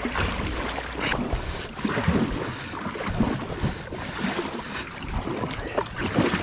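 Kayak paddling on a river: irregular paddle splashes and drips with scattered light knocks, and wind rumbling on the microphone during the first second.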